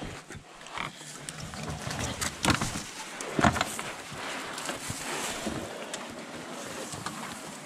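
Twigs, branches and dry bank grass crackling and scraping along a canoe's hull as it is hauled through brush at the stream's edge, with a few louder knocks and scrapes a few seconds in.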